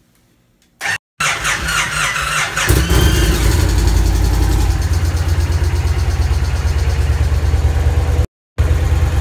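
A Victory Magnum's 106 cubic inch Freedom V-twin is cranked by the electric starter from about a second in, catches near the three-second mark, then idles steadily with a deep, even rumble. It is running on the exhaust fitted before the new mufflers, which the owner calls super quiet.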